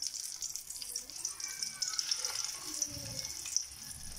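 Egg-dipped bread slices shallow-frying in a little hot oil in a frying pan: a steady sizzle with fine crackling.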